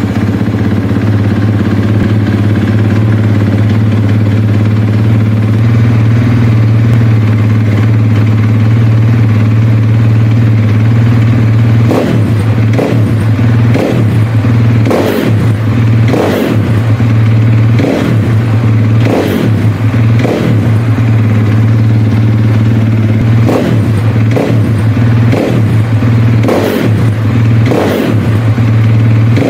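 KTM 450 SX-F single-cylinder four-stroke motocross engine running through an FMF slip-on exhaust. It idles steadily at first, then partway through is revved in about a dozen short throttle blips, a second or so apart.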